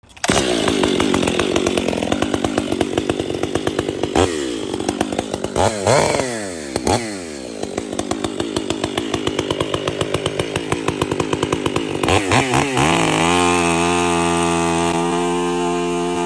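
Stihl MS 500i chainsaw, a fuel-injected two-stroke, running while cutting a red oak trunk, its engine speed rising and falling several times. Near the end it settles into a steady, even tone.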